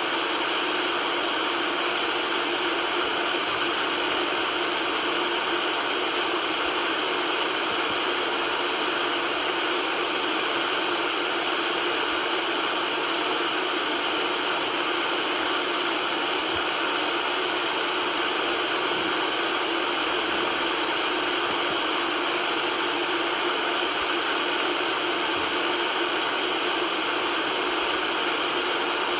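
Steady white noise: an even, unchanging hiss spread across the high and middle range, with almost no bass.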